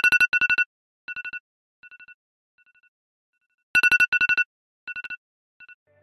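Electronic ringtone-style beeping sound effect: fast trains of high, steady two-note pulses. One loud burst comes at the start and another about four seconds in, each repeating fainter and fainter like an echo.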